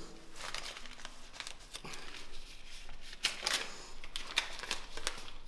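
Clothing rustling with scattered light clicks and crinkles as pockets are turned out and their contents handled.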